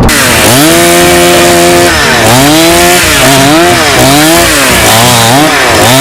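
Chainsaw engine revving hard: the pitch climbs and holds briefly, then is throttled up and down several times in quick swells.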